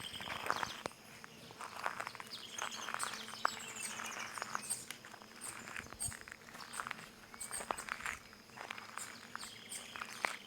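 Irregular footsteps stepping on flowers and crystallized stone, with birds chirping over them.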